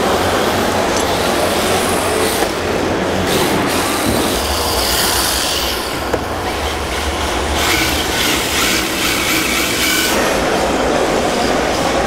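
1:10-scale RC drift cars sliding around the track: a steady hiss of hard drift tyres on the smooth floor, with electric-motor whine and high-pitched squeals that come and go, one falling in pitch about five seconds in.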